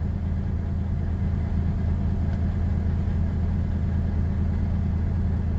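Engine running steadily at a constant speed, a low even drone.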